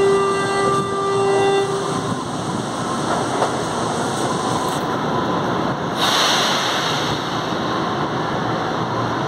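Metro train standing at the platform: a steady warning tone sounds and stops about two seconds in, over the station's constant rumble. About six seconds in there is a short burst of hissing air.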